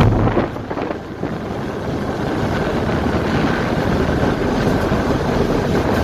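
Steady rumble of a car ferry under way, heard from its open vehicle deck, with wind buffeting the microphone. A loud low hum sounds briefly at the start.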